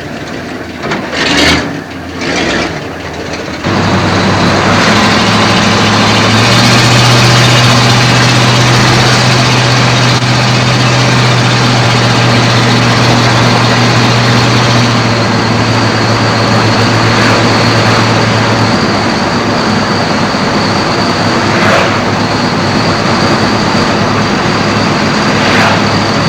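Truck engine running loud and steady from about four seconds in, after a couple of short knocks. Its pitch steps up for several seconds, then settles back down.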